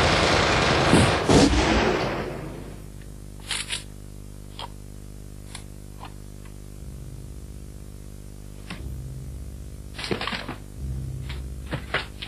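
Combat gunfire: a loud burst with two heavy reports about a second in, dying away by about two seconds, then scattered single sharp shots. A low steady hum runs underneath.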